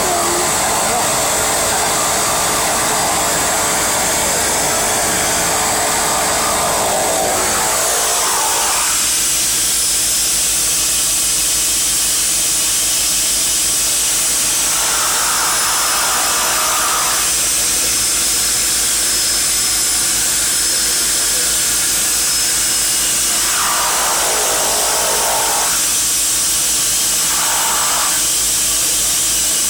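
Seaplane's turboprop engine running steadily while the aircraft taxis on the water, a loud even whine and hiss; the lower rumble drops away about eight seconds in.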